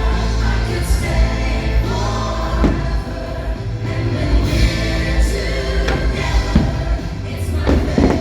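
Music with choral singing, over a heavy low rumble, with a few short thuds.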